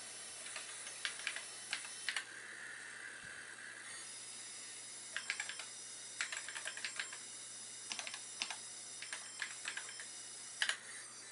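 Typing on a TRS-80 computer keyboard: several short runs of key clicks with pauses between them, over a steady low hum and hiss.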